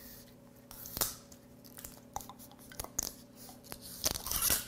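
Ilpum Jinro soju bottle being opened by hand: scattered clicks and crackles as the cap's seal is broken and the cap twisted off, with the loudest crackling near the end.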